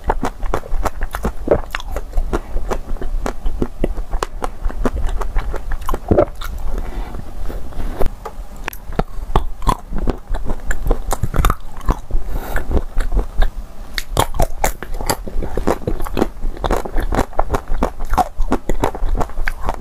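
Chocolate-coated ice cream bars being bitten and chewed, the chocolate shell crunching and crackling in dense, irregular clicks throughout.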